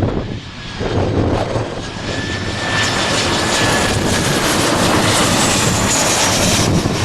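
Airliner's engines running loud as the plane passes, building about two seconds in, with a thin steady whine and wind buffeting the microphone.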